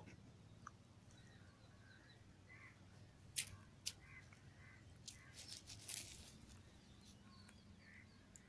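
A dog biting and chewing a lizard: a few sharp, crunching clicks around the middle, over quiet background with faint, short bird calls.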